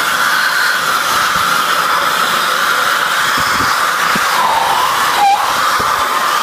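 Electric hand dryer blowing a loud, steady jet of air, with a person's wide-open mouth held in the blast. A short wavering tone dips in pitch about five seconds in.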